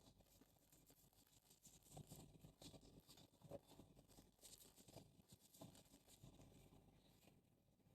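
Near silence with faint, scattered rustles and small knocks of kitchen items being handled.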